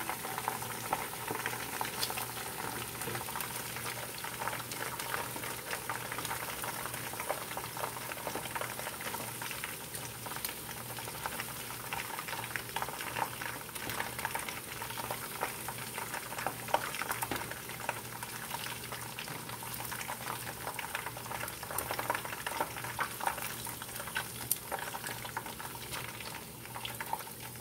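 Battered chicken pieces frying in hot oil in a pan: a steady, dense sizzle and crackle of bubbling oil.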